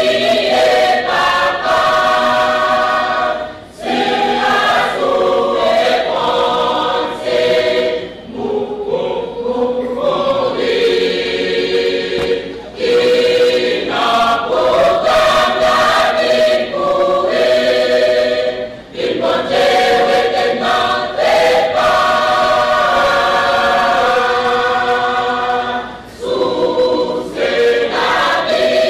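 Church choir singing, in sustained phrases a few seconds long with brief breaks between them.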